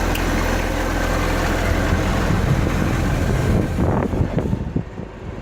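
Tractor engine running steadily with a loaded wheat trailer, a constant low hum under a broad mechanical noise that eases off somewhat near the end.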